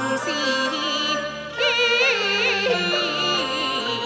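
Chinese opera singing: a single voice holds long, wavering, ornamented notes over traditional instrumental accompaniment.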